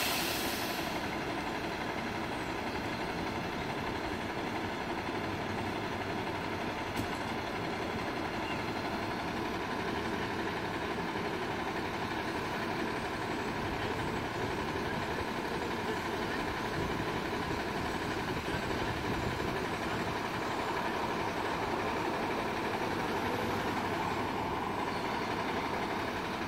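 Medium-duty diesel straight truck's engine idling steadily.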